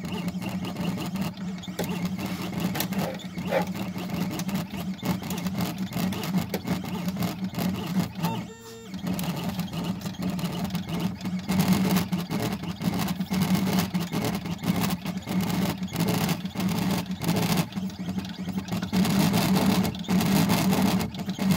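Tag-engraving machine engraving a brass pet ID tag: a steady motor hum with rapid ticking from the engraving point working the metal, with a brief pause about a third of the way in.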